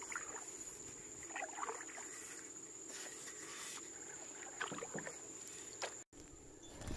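A canoe being paddled through still water: a few faint, scattered paddle dips and water sounds over a steady thin high tone.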